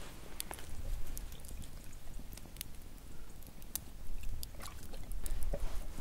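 A Mongolian bankhar dog sniffing, licking and biting at a piece of meat on a wooden block: irregular sharp wet clicks and smacks over a low rumble.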